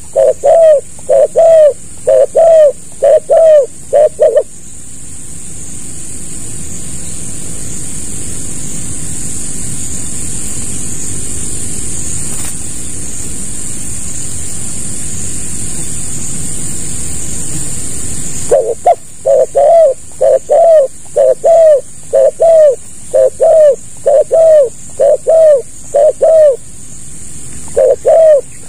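Spotted dove (tekukur) cooing in fast, evenly repeated notes. The cooing stops about four seconds in, a low rushing noise fills the middle, and the coo series resumes in the second half.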